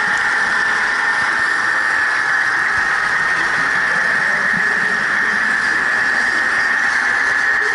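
Model train running along the layout track, heard from a camera riding on it: a steady high whine over an even hiss of rolling noise.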